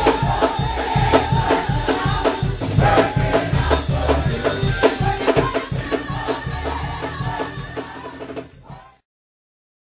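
Gospel choir singing with a live band, drums and rattling hand percussion keeping a steady beat; the music fades out and stops about nine seconds in.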